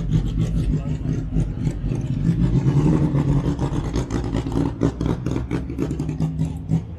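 Car engine running close by, getting louder and rising slightly in pitch for a second or so around the middle.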